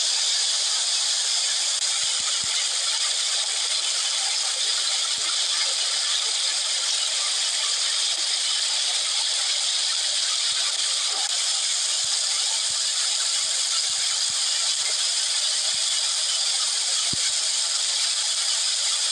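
Shallow stream water rushing and splashing over a low wall of stacked stones, making a steady hiss. A few faint knocks come through now and then.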